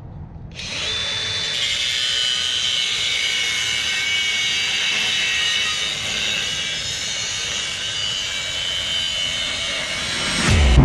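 Cordless angle grinder starting up about half a second in and cutting through a steel wheel stud on a truck hub, a steady high grinding hiss that stops just before the end.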